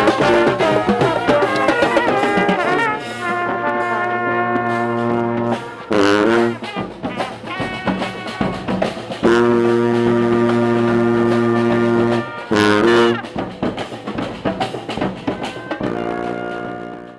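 Brass street band playing: busy ensemble music, then long held chords broken by short quick runs, fading out at the very end.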